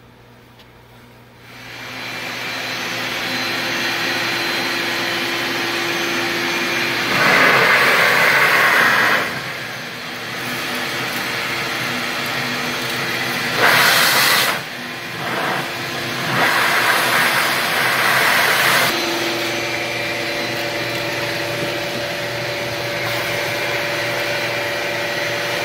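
Vacuum cleaner switched on about a second and a half in, running steadily while it cleans up the countertop, with several louder rushing surges as it is worked along.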